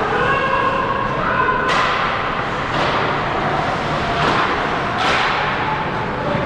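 Ice hockey play in a rink: several sharp hits of puck, sticks or bodies against the boards, each ringing out in the hall.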